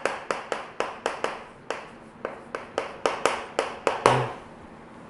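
Chalk tapping and scraping on a chalkboard as Korean characters are written: a quick run of sharp taps, about four to five a second, ending in one harder tap about four seconds in as the line is finished with a period.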